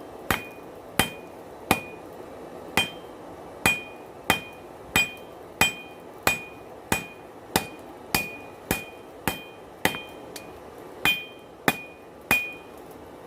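Blacksmith's hammer striking hot steel on an anvil: a steady run of blows about every two-thirds of a second, most with a short, high ring.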